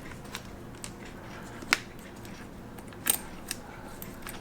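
Small sharp metallic clicks and taps, about half a dozen, the loudest a little under two seconds in, as the spring bars are worked out of the watch lugs with a tool and the strap comes off.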